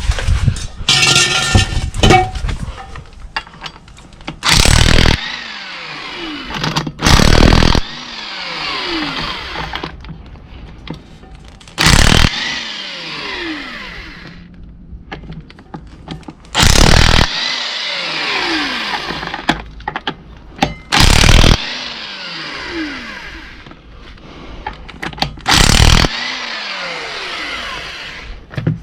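Impact wrench driving bolts in six short bursts of under a second each, a falling whine after each burst as the tool spins down, and a steady rushing noise between bursts.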